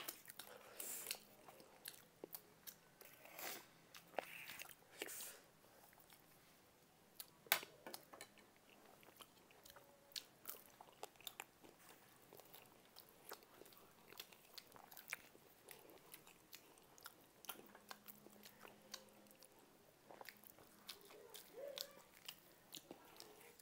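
Faint mukbang eating sounds: chewing and biting with scattered irregular small clicks and taps from a spoon and dishes, the sharpest click about seven and a half seconds in.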